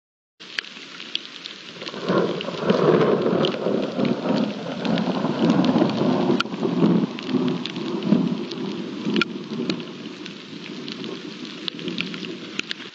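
Rain falling, with drops ticking close to the microphone, and a long roll of thunder that builds about two seconds in and eases off toward the end.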